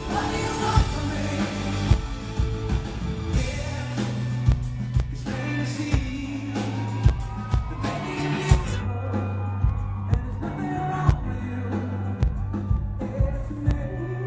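Live pop-rock band with a male lead singer: drums, bass and guitar under the vocal, with regular drum hits. About two-thirds of the way in, the bright high wash drops out, leaving drums, bass and voice.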